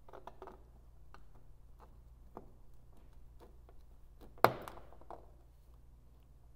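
Single-edge razor blade shaving hard plastic alignment tabs off a bulb-socket plug: faint scrapes and small ticks, with one sharp click about four and a half seconds in.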